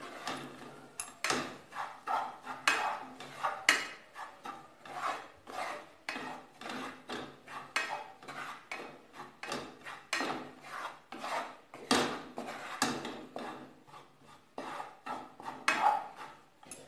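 Yellow plastic spatula scraping and stirring gram flour around a frying pan in quick, repeated strokes, about three a second, as the besan is fried in oil.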